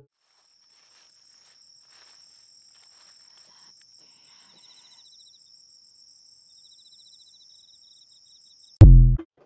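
Faint insects, crickets among them: a steady high-pitched trill with a faster pulsing one above it and short runs of chirps. Near the end a very loud, sudden low burst cuts in for less than half a second.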